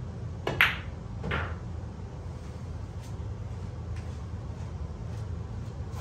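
A pool shot: a sharp click of billiard balls striking, then a duller knock under a second later, over a steady low hum.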